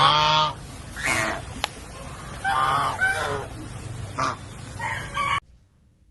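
Duck quacking, about half a dozen short calls, stopping suddenly near the end.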